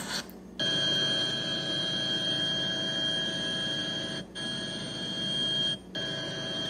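Soundtrack of news footage of a fire burning on the sea surface, played through a tablet's speaker: a steady drone with an even, high whine on top. It starts about half a second in and cuts out briefly twice as the playback is touched.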